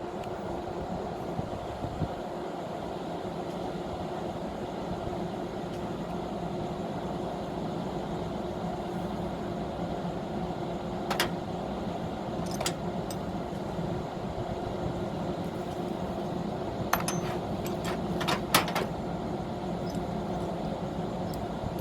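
Steady machine hum, with a few sharp metallic clicks or clinks, the last ones in a quick cluster near the end.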